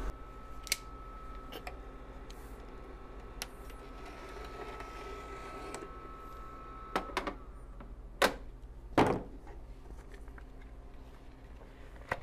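Clicks and knocks from handling a vinyl cutter and a sheet of gold heat transfer vinyl, the loudest two close together about eight and nine seconds in, over a faint steady high tone from the cutter that stops about seven seconds in.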